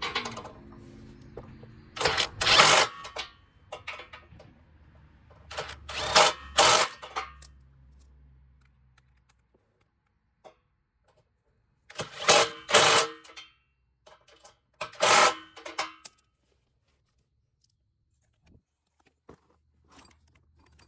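Ryobi cordless impact tool hammering 13 mm nuts tight on a car's bumper reinforcement, in four bursts of about a second each.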